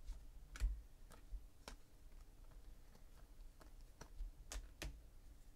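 Trading cards being flipped through by hand, giving a handful of faint, irregular clicks as cards are slid across each other in the stack.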